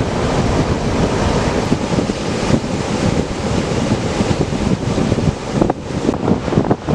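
Wind buffeting the microphone, with ocean surf breaking and washing underneath in a continuous roar of noise.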